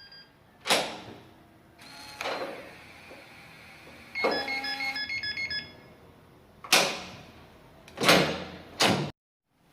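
Gateman E100 digital door lock on a closing door: a knock and a clunk, then the lock's electronic beep tune for about a second and a half, followed by a sharp click, a longer grating clunk and another click as the motorised deadbolt throws. The uploader traces the strange noise to the deadbolt rubbing against the latch.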